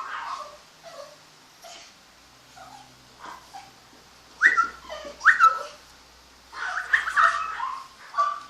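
Chihuahua puppy whimpering and yipping in short high cries. The loudest are two sharp falling yelps about four and a half and five seconds in, followed by a cluster of whines near seven seconds.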